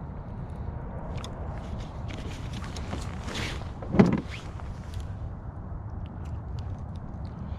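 Handling noise as a spoon lure is worked free of a coho salmon's mouth with fingers and pliers: small clicks and rustles over a steady low rumble, with one sharp thump about four seconds in.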